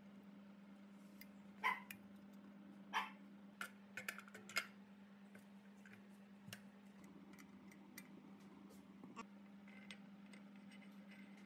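Sharp metallic clicks and clinks from a hex key and metal machine parts being handled and fitted, loudest and most frequent in the first half, over a steady low hum.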